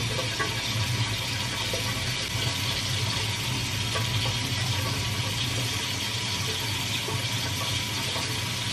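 Water running steadily from a bathroom sink tap, an even hiss with a low hum under it.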